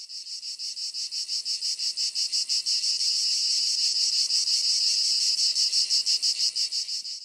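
Cicadas singing: a high-pitched, even pulsing of about seven beats a second that swells in over the first couple of seconds and cuts off suddenly at the end.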